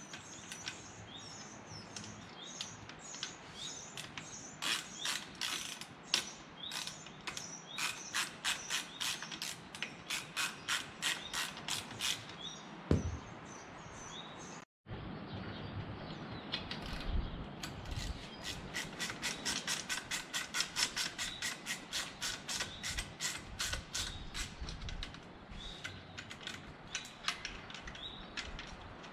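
Hand socket ratchet clicking in quick runs of strokes as it snugs up the propeller hub bolts, which have 13 mm heads.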